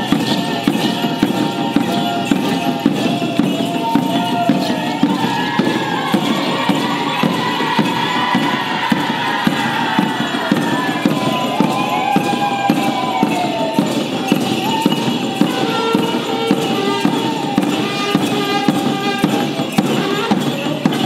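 Mapuche purrun dance music: a fast, steady jingling and percussive beat with a melody that rises and falls over it.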